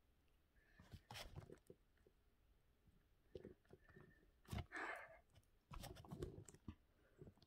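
Faint, scattered scratches and clicks of writing on paper, in short strokes with pauses between them.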